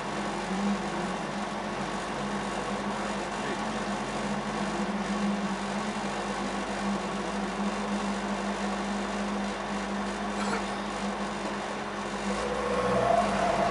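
Volvo 142S rally car's engine idling steadily, heard inside the cabin, with a brief rise in revs and loudness near the end.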